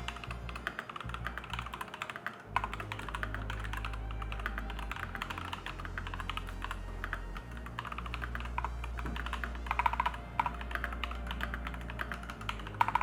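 Fast, continuous typing on an Akko 5108B Plus mechanical keyboard with Akko Cream Yellow linear switches: a dense run of quick key clicks and clacks.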